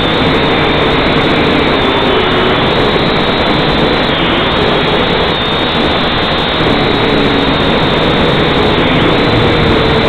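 Syma X5C-1 quadcopter's small motors and propellers whining, picked up close by its own onboard camera. The sound is a loud, steady rush with faint whine tones that waver slightly in pitch as the drone hovers and moves off.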